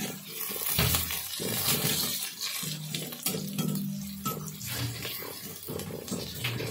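Crushed garlic sizzling in hot oil in an aluminium kadhai while a metal spatula stirs it, scraping and knocking against the pan now and then. The garlic is being browned in the oil.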